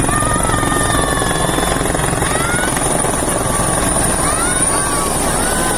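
Helicopter rotor beating rapidly and loudly while the helicopter comes in to land. Faint short gliding high-pitched calls sound over the rotor noise.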